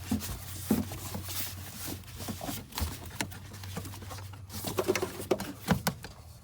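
Hands working parts into place: rustling and scraping of plastic and foam with a run of sharp clicks and knocks, busiest near the end, over a steady low hum.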